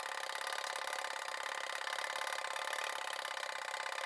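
Coded fire alarm pull station's gear-driven code mechanism running through its code rounds, a rapid, steady clicking of the gears.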